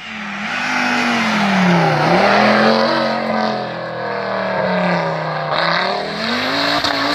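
Historic rally car's engine revving hard at stage speed. Its note drops about two seconds in, climbs again, and dips once more near the end.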